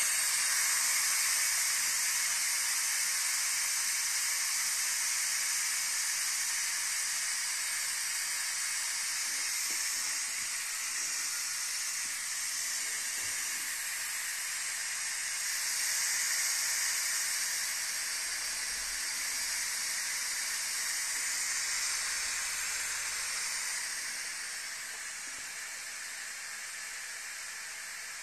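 Steam hissing out of the pressure-release vent of a Tefal CY505E40 Multi Cook electric pressure cooker while the release button is held down, letting off the pressure after cooking so the lid can be opened. The hiss starts suddenly, stays steady and eases off a little near the end.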